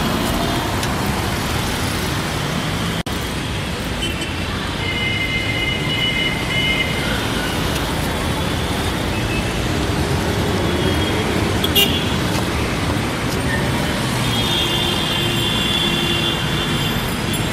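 Dense city road traffic: a steady hum of many cars and trucks, with car horns sounding about five seconds in and again near the end.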